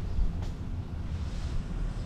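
Wind buffeting the microphone of a camera mounted on a slowly moving car, heard as a low, uneven rumble with a faint hiss above it. There is one light tick about half a second in.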